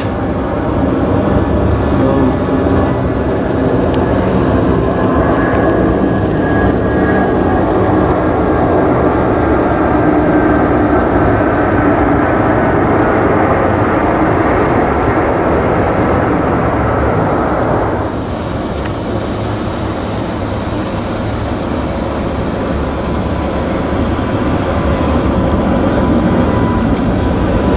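Jet engines of an Airbus A330 widebody twin-jet climbing out after take-off: a loud, steady rumble with a faint whine that slowly falls in pitch. About two-thirds of the way through, the sound changes abruptly to a duller rumble, that of a second twin-engine widebody climbing out.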